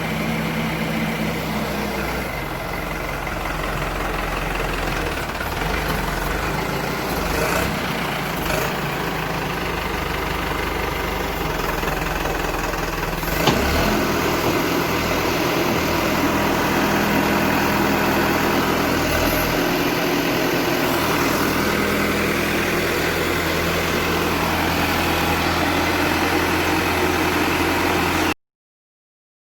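Escorts DigMax-II backhoe loader's diesel engine running steadily, its pitch shifting a couple of times as the engine speed changes. A single sharp knock comes about thirteen seconds in, and the sound cuts off abruptly near the end.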